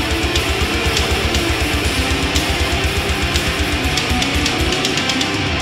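Background music: guitar-driven rock with a fast, steady drum beat; the bass drum drops out briefly near the end.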